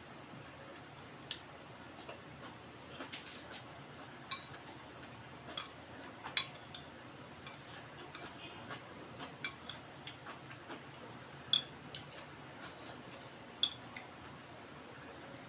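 Eating sounds from a bowl of instant noodles: a string of small, irregular clicks and taps, with two louder ones in the last third.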